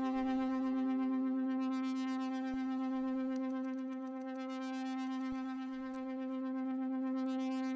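Background music: a steady, held synthesizer drone on one pitch with overtones.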